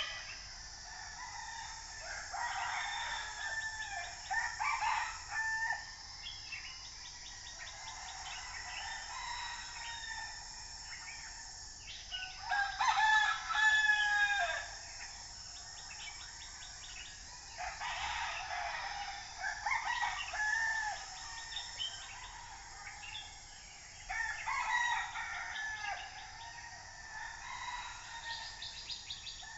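Roosters crowing, several long crows in turn, the loudest about halfway through, with smaller birds chirping between them.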